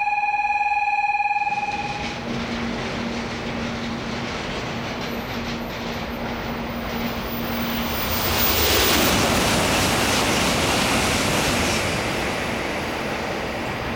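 An N700-series Shinkansen passing through the station at high speed: a rush of wind and rolling noise that builds, is loudest from about eight seconds in with a sweep in pitch as it goes by, then eases off. A steady electronic tone stops about a second and a half in.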